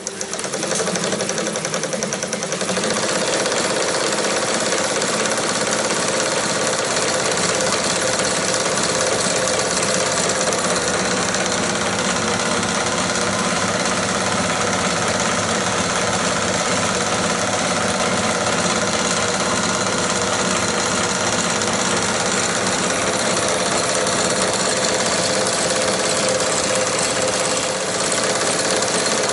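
A 35mm motion picture projector mechanism, belt-driven by an electric motor through a leather belt, running fast with a rapid, steady mechanical rattle. It speeds up over the first couple of seconds, then holds at a speed the operator reckons is at least 24 frames a second, not much faster.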